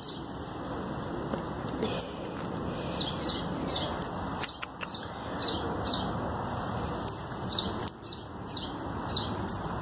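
A bird calling with short, high chirps that slide down in pitch, repeated in quick runs of two or three, over a steady noisy outdoor background.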